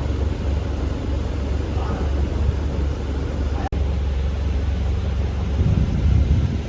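Steady low rumble aboard a pontoon boat under way, with wind buffeting the microphone. The sound cuts out for an instant a little over halfway through.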